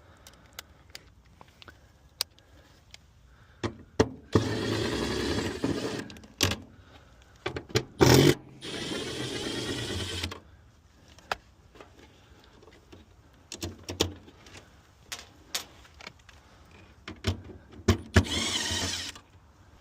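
Cordless drill/driver running in short bursts, four runs of one to two seconds each, with clicks and taps of handling between them.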